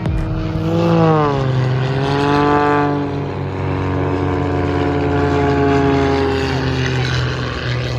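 Aircraft engine flying past at an airshow, its note falling slowly as it goes by, over a steady low rumble.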